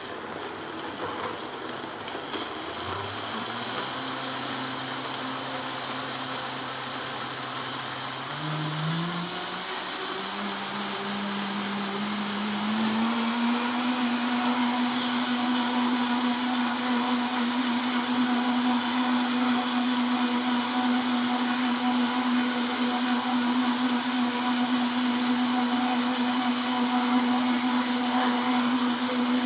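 Vitamix 7500 blender motor starting at low speed about three seconds in, then climbing in pitch in several steps as the variable-speed dial is turned up. From about thirteen seconds in it runs steadily at high speed, blending fruit into a smoothie.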